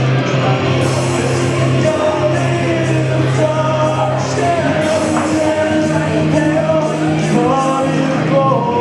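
Live rock music with singing, over held low notes that change every second or two.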